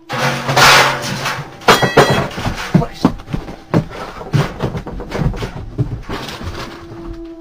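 A loud burst of noise, then a fast, uneven run of heavy thumps and bangs that thins out toward the end: someone scrambling away across wooden attic floorboards.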